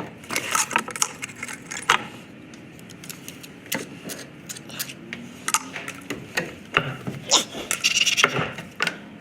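Irregular clinking and clattering of hard objects, many sharp clicks scattered through, thickest around four seconds and again about eight seconds in.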